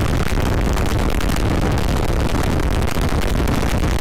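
Yamaha Vixion 150 cc single-cylinder motorcycle cruising at just over 100 km/h and still gaining speed. Wind noise on the handlebar-mounted microphone is the main sound, a steady, heavy rush with the engine underneath.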